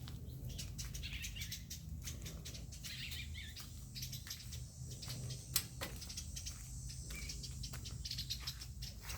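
Small songbirds chirping: many short, high chirps in quick succession, over a low steady hum.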